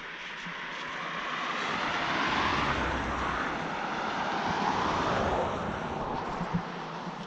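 A vehicle passing by. It grows louder to a peak and then fades away, its pitch dropping as it goes past.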